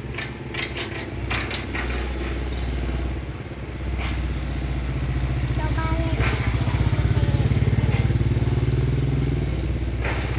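An engine running with a low, pulsing rumble that grows louder about halfway through, then eases off near the end, with a few light clicks early on.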